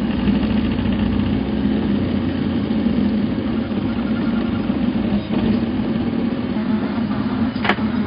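Homemade 3D printer running a print: a steady hum and buzz from its stepper motors and mechanics as the hotend moves, with a short sharp chirp near the end.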